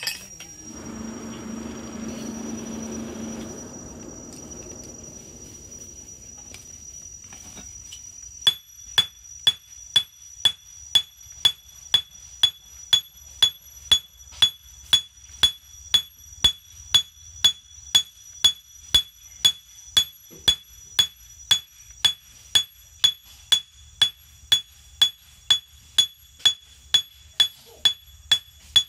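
Hand hammer forging a red-hot wangkil (small weeding-sickle) blade on a steel anvil: steady blows a little under two a second, each with a bright metallic ring, starting about eight seconds in. Before the hammering, a few seconds of rushing noise.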